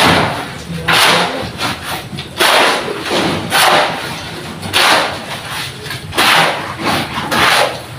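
Wet concrete mix scraping and sloshing in repeated bursts, about one burst a second, as the mix is worked for pouring the slab.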